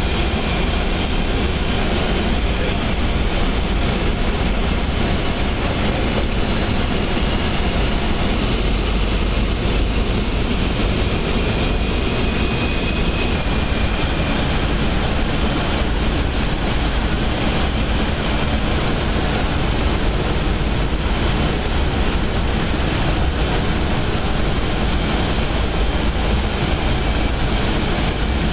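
Steady cockpit noise of a KC-135 Stratotanker in flight: an even, deep rumble of engines and rushing air, with faint high whines running through it.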